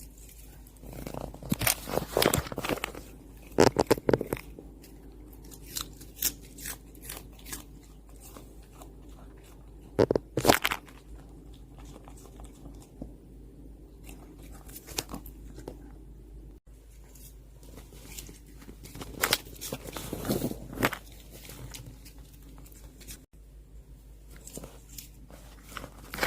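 A Yorkshire terrier biting and chewing raw cabbage, crisp wet crunches coming in clusters with quieter chewing between.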